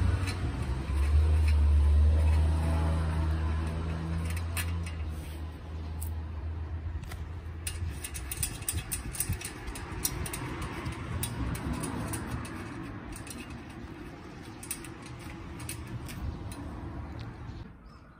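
A motor vehicle's engine running close by, a low hum that is loudest about two seconds in and fades away over the next several seconds. Scattered light clicks and knocks of metal come from work on a bicycle's front axle nuts and wheel.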